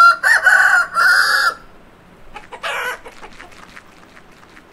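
Chicken sound effect: a rooster crowing cock-a-doodle-doo in three parts, followed about two and a half seconds in by a shorter call and then faint quick clucks.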